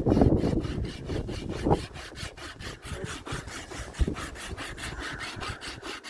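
Fast, even rasping strokes, about five a second, like hand sawing or scraping, with a few dull knocks among them.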